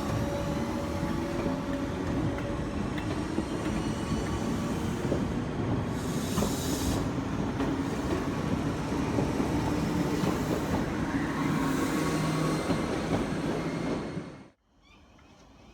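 Electric multiple unit train moving at a station: steady rumble of wheels and running gear with a whine of steady motor tones and a short hiss about six seconds in. It cuts off suddenly near the end.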